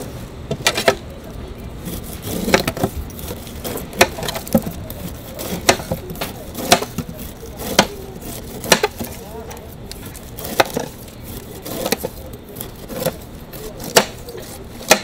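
Large chef's knife cutting the rind off a whole pineapple in downward strokes. Each stroke ends in a sharp knock of the blade on a plastic cutting board, roughly once a second.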